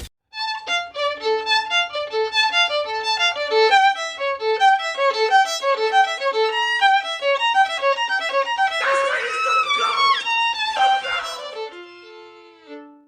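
Background music: a fast, lively violin melody of quick short notes, growing fuller for a couple of seconds near the middle, then slowing to a few held notes and fading out near the end.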